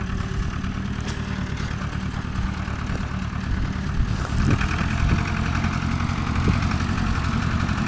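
Tractor engine running steadily, with a few faint knocks in the second half.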